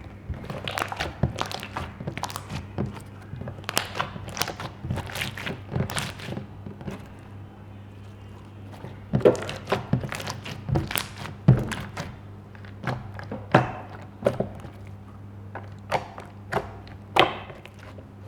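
Hands squeezing and pressing stiff slime: sticky, irregular clicks and pops in quick clusters, pausing briefly partway through, then sharper and louder pops. A steady low electrical hum sits underneath.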